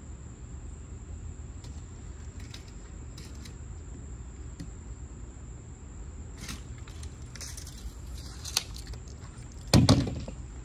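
Faint taps and clicks of a tape measure and pencil working on a sheet of plywood, over a steady low rumble. Near the end comes a sharp click, then a loud close bump that fades quickly.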